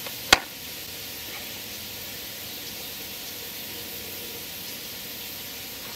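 Steady faint hiss with no distinct events, broken once shortly after the start by a single sharp click.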